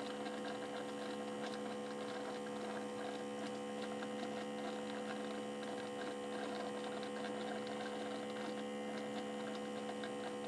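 Espresso machine running with a steady electric hum, with faint crackling over it.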